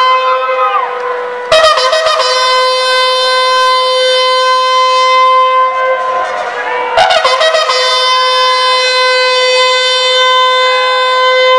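A ceremonial call held as one long, steady note at a single pitch. It breaks off and starts afresh with a sharp attack about a second and a half in, and again about seven seconds in.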